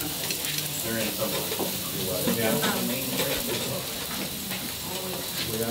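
Food sizzling in a frying pan, a steady hiss.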